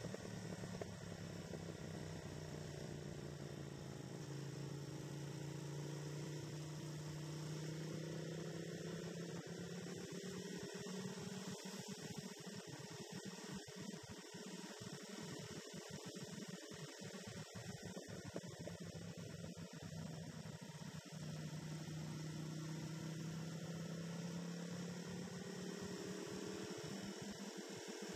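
Motorcycle engine droning faintly at a steady cruise, its pitch drifting slowly up and down with road speed.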